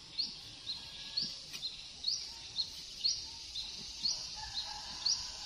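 A bird repeating a two-note call about once a second: a short rising chirp followed by a lower, shorter note. A steady high hiss runs underneath.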